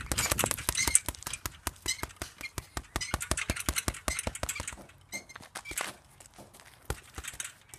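Boxing gloves hitting a double-end speed ball in a rapid flurry of slaps, several a second, thinning out to a few scattered, quieter hits after about five seconds.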